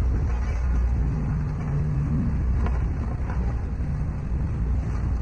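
Diesel engine of heavy earthmoving machinery, a road roller or bulldozer, running steadily with a low rumble.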